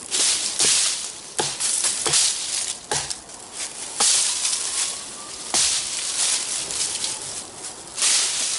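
Thick Camillus Carbon V kukri chopping branches off a fallen tree trunk: a series of sharp chopping strikes, about six in the first six seconds, with rustling of branches and dry leaves between and after them.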